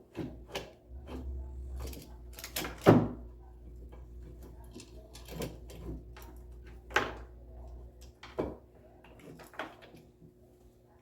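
Metal drum-brake parts being handled and fitted by hand: an uneven series of clanks and knocks, the loudest about three seconds in.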